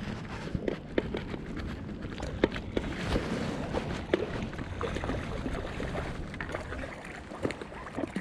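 Waterside ambience: a steady wash of water and wind, with many small irregular clicks and knocks scattered through it.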